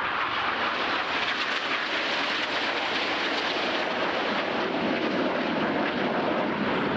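Steady jet noise from a formation of Aermacchi MB-339 jet trainers flying overhead.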